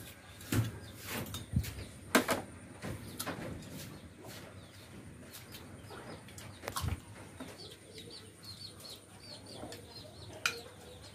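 Chopsticks and porcelain bowls clinking and knocking during a meal, several separate sharp clicks with the loudest early on. In the last few seconds, birds chirp faintly in a quick repeated series.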